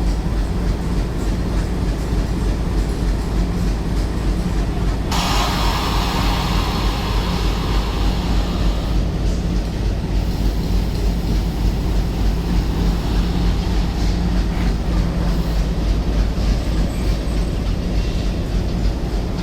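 Indian Railways train running along the track with a steady low rumble. About five seconds in, a harsher hissing noise joins and lasts about four seconds.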